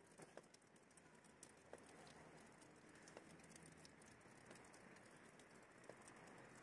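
Near silence: faint outdoor background with scattered soft ticks.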